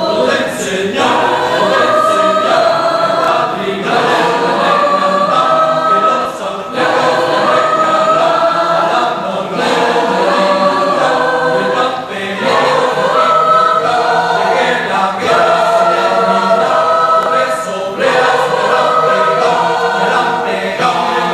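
Mixed choir of men and women singing a habanera a cappella, holding chords in phrases that swell and change every second or two.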